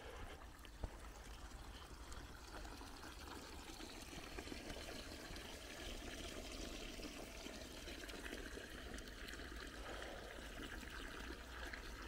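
The Indus River flowing: a faint, steady rush of water, with one short click about a second in.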